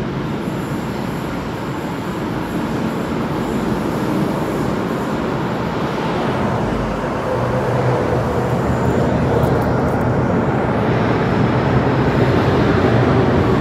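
MTR Island Line M-train pulling into an underground station: a steady rumble of wheels and motors that grows louder as the train comes out of the tunnel and runs in alongside the platform.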